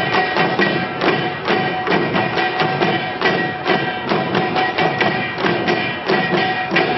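A group of janggu, Korean hourglass drums, played together in a fast, even rhythm of sharp strikes, several a second, over a held note.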